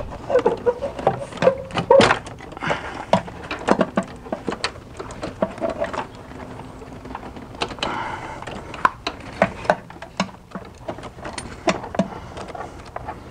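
Hands working the plastic electrical connectors off the brake pressure sensors on a master cylinder: scattered clicks, taps and knocks of plastic and metal. The connectors are stuck and need repeated tugging.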